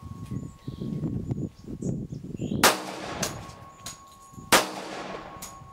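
M1911 pistol in .45 ACP firing two shots a little under two seconds apart, each a sharp crack with a brief echoing tail.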